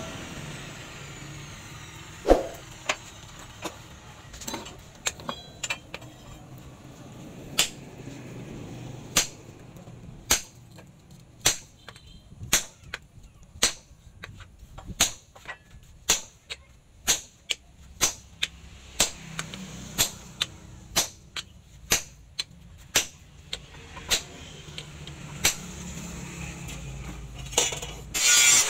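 Hammer blows on red-hot steel knife stock on a steel post anvil, a sledge striking a handled set hammer held on the blade: sharp metallic strikes, a few scattered at first, then a steady rhythm of a little over one a second.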